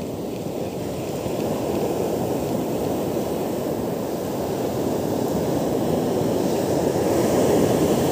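Ocean surf breaking and washing up a sand beach: a steady rushing that grows a little louder in the second half.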